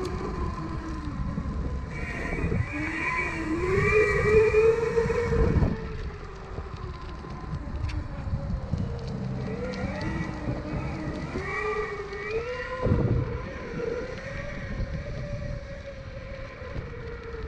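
Twin brushless motors of an off-road electric skateboard whining under throttle, the pitch rising and falling as the board speeds up and slows, over a low rumble. The loudest stretch comes about four to five seconds in.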